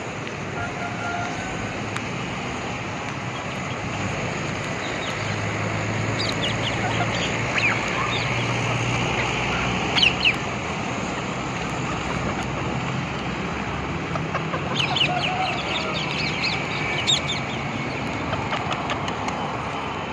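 Parrots giving short, sharp squawks in clusters, about six to ten seconds in and again around fifteen to seventeen seconds in, over a steady background noise.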